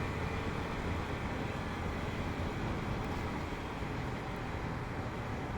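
Steady riding noise from a motorcycle on the move: wind rush and road and engine noise, level and unbroken.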